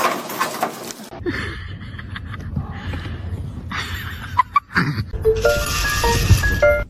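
Music, ending in a run of short held notes that step up and down in pitch and then cut off.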